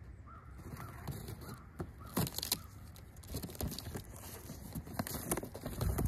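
Cardboard shipping box being opened by hand: flaps pulled back and packing paper rustling, with several sharp knocks and scrapes of the cardboard. A bird calls a few times in the background in the first couple of seconds.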